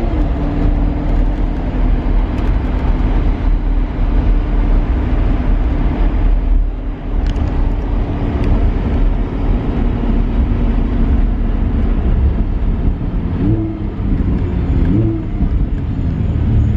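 Two-seater convertible's engine running under way with the top down, a steady engine note over low road rumble. About three-quarters of the way through, the pitch rises and falls twice. The driver feels the car doesn't sound like it's in the right gear.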